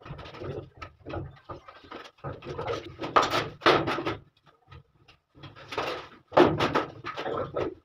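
Irregular knocks and scrapes of handling work in a bare, echoing room. The loudest clatter comes about six seconds in, as a plastic chair is picked up and moved.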